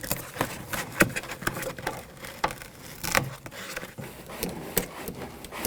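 Plastic vapor barrier being peeled away from the door's sticky butyl tape sealant, with irregular crackles and sharp clicks.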